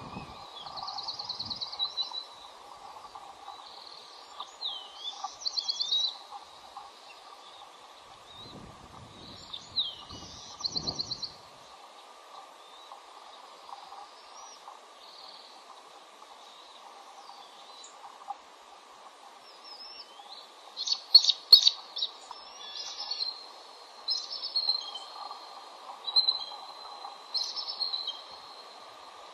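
Bald eagles calling at the nest: high, thin chattering calls made of quick runs of pulsed notes with a few gliding whistles, repeated several times. A cluster of sharp, loud notes comes about two-thirds of the way through.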